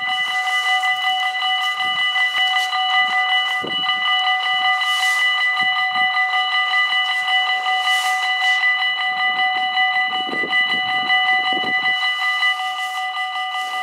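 Dutch level-crossing warning bells ringing rapidly and steadily while the barriers come down, a little quieter near the end.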